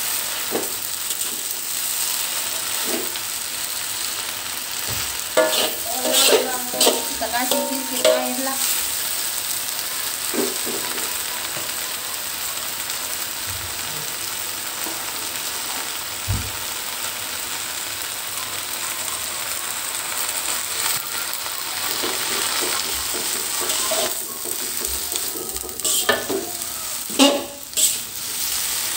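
Bayam (amaranth greens) sizzling in hot oil in a metal wok, with a steady hiss, while being stirred with a slotted metal spatula. The spatula scrapes and clanks against the wok in two spells, about five seconds in and again near the end.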